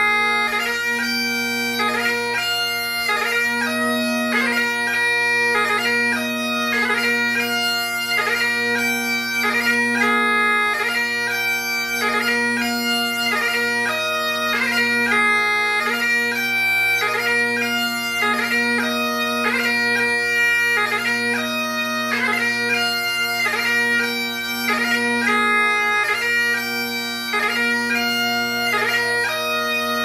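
Great Highland bagpipe playing a piobaireachd: the drones hold one steady low chord under the chanter's slow melody of long held notes, each change of note cut by quick grace-note flourishes.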